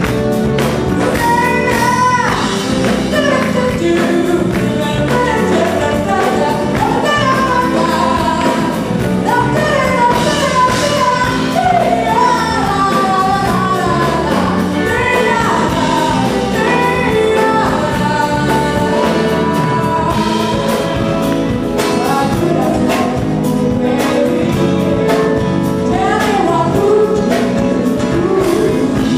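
Live band playing a jazzy soul song, a woman singing lead over keyboards and electric guitars.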